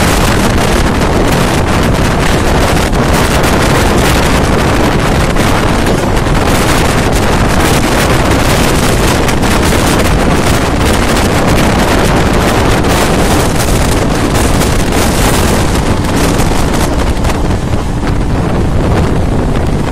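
Wind rushing and buffeting against the microphone at the open window of a moving electric MEMU train, over the train's steady running noise.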